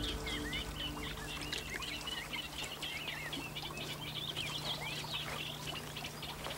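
Small birds chirping and twittering, many short calls overlapping throughout, over a faint steady low hum. The last of a held musical chord dies away about a second and a half in.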